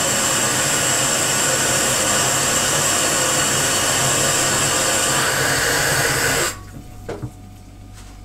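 Kitchen tap running hard, pouring cold water into a plastic measuring jug. The flow cuts off suddenly about six and a half seconds in, followed by a few light knocks.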